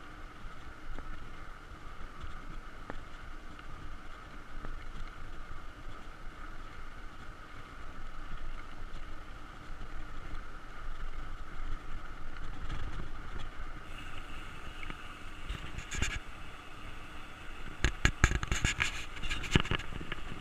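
Mountain bike rolling along a paved road, heard from a camera on the bike: a steady rush of wind and tyre rumble. In the last few seconds rattling clicks and knocks come in, thickest near the end.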